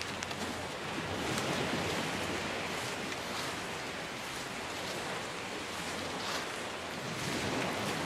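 Small Gulf of Mexico waves washing onto a sandy beach: a steady surf hiss that swells a little about a second in and again near the end.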